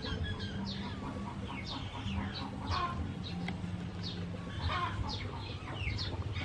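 Chickens clucking and chirping: many short, high calls, each falling in pitch, two or three a second, over a low steady hum.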